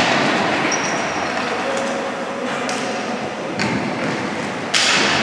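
Ball hockey play echoing in a hall: sharp knocks of sticks and ball against the boards, the loudest near the end, over a steady din of players and spectators.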